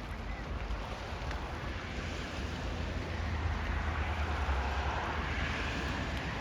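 Rushing water of the seasonal Sopot waterfall, a steady hiss that swells louder about halfway through, over a low buffeting rumble of wind on the microphone.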